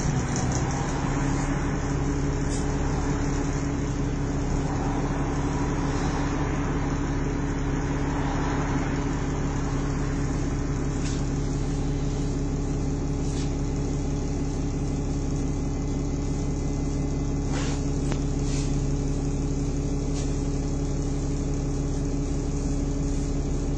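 Diesel bus engine idling steadily, heard from inside the passenger saloon. A few faint clicks come through in the second half.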